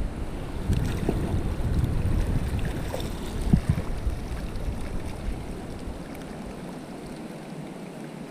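Wind buffeting the microphone over shallow surf washing around the feet, with a short knock about three and a half seconds in. The wind rumble drops away near the end, leaving the lighter hiss of the water.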